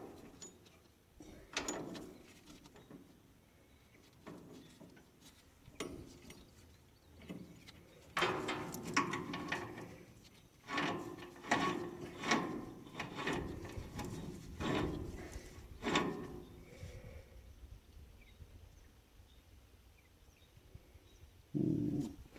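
Steel roller chain clinking and rattling against metal parts as it is handled and strung onto the drive sprockets by hand: a run of irregular clicks and knocks, busiest in the middle.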